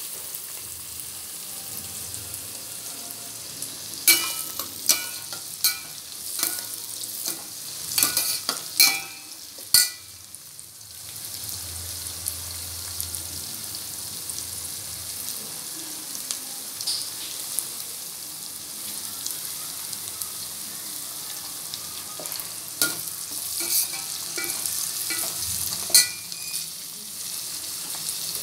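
Shallots and garlic sizzling in hot oil in a stainless steel pot, with a steady hiss. A slotted steel spoon stirring them clinks and scrapes against the pot in two spells of sharp knocks, one in the first third and one near the end.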